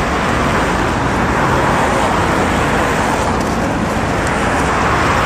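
Road traffic noise: a loud, steady rush of passing vehicles.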